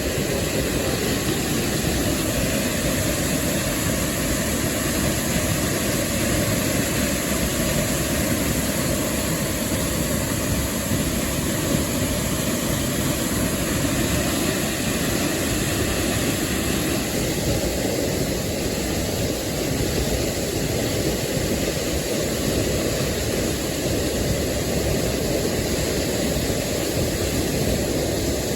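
Steady roar of a large waterfall, an even rushing noise heaviest in the low range.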